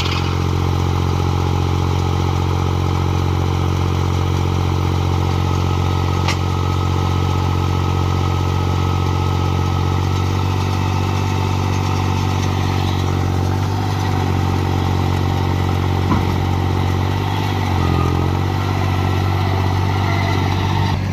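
New Holland tractor's diesel engine running steadily as it pulls a working Shaktiman baler, with machinery clatter mixed in. The engine note wavers briefly twice in the second half.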